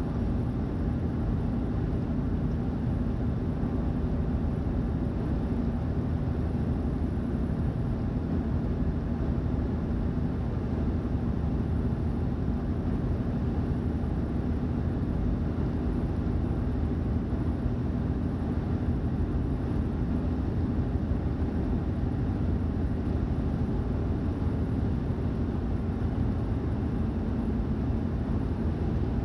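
Steady road and engine noise inside the cabin of a vehicle cruising at highway speed: a constant low rumble and hum with no changes.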